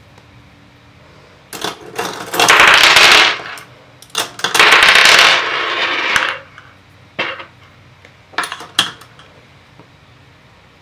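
Small hand tools clattering as they are rummaged through off to the side: two loud spells of dense rattling, each about two seconds long, followed by a few light clicks as a tool is picked out and set down.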